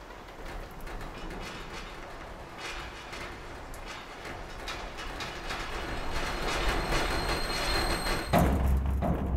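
A grinding, rumbling sound that swells steadily in loudness, with a thin high whine over it in the last seconds. It ends about eight seconds in with a sudden heavy low thud.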